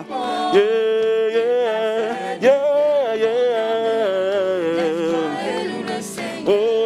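Gospel worship music: voices singing a slow melody with held, wavering notes over a sustained electronic keyboard accompaniment.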